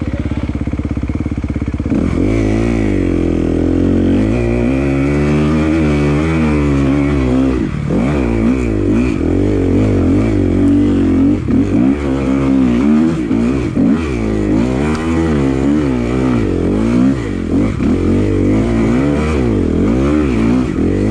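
Enduro dirt bike engine, ridden on the throttle: steadier for the first couple of seconds, then revving up and falling back over and over as the rider works the throttle.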